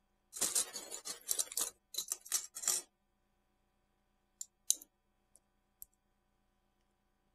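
A small plastic bag of metal binder clips crinkling and the clips clinking as it is opened and tipped out, a quick run of rustles for about two and a half seconds. A few light separate clicks follow.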